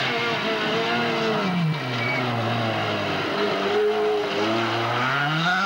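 Rally car engine at competition revs as the car drives a stage. The revs drop about a second and a half in as the driver lifts, hold low for a while, then climb steeply near the end as it accelerates hard.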